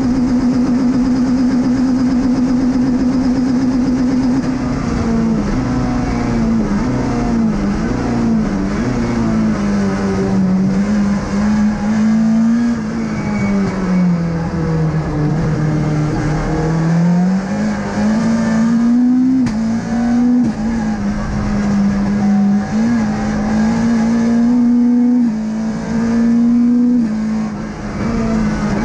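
Peugeot 206 rally car engine heard from inside the cockpit, held at high revs for about four seconds, then rising and falling through gear changes. The revs sink lowest about halfway through as the car slows, climb again and hold, and dip once more near the end.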